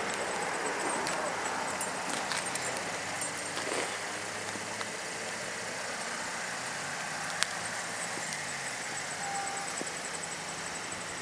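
Holden VF2 Commodore Evoke's V6 idling quietly under a steady outdoor hiss, with a few light clicks and one sharp click about seven seconds in.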